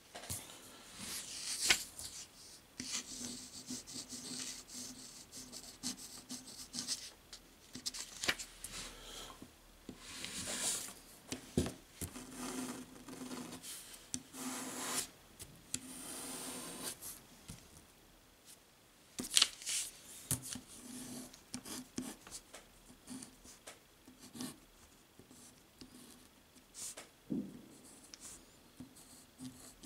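Broad-nibbed calligraphy fountain pen scratching across paper in short, irregular strokes, with a few sharp ticks, the loudest about two seconds in and again just past the middle.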